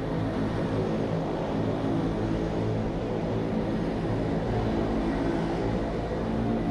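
Wengernalpbahn electric rack-railway train running past at close range, with a steady hum from its motors and gearing.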